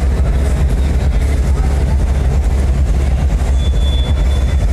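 Loud, steady deep bass from PA loudspeakers and subwoofers playing at high volume, filling the hall with a low rumble.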